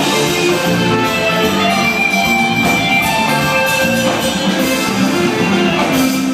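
Live band music playing on a concert stage, with held notes over a steady beat.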